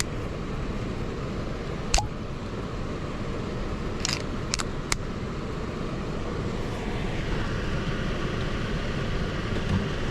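Steady rush of an HVAC air handler's blower fan running, with a sharp click about two seconds in and a quick run of three clicks around four to five seconds in.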